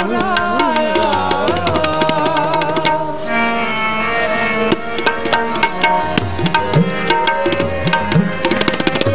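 Sikh kirtan: a man's sung line ends about two seconds in, then harmonium chords are held over a steady tabla rhythm, the low drum's strokes sliding up in pitch.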